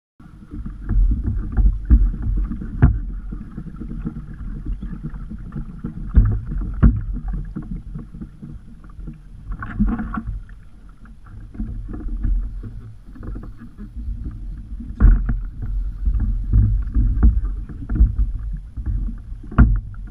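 Water sloshing and slapping against a kayak's hull, with wind buffeting the microphone and a few sharp knocks against the hull and gear.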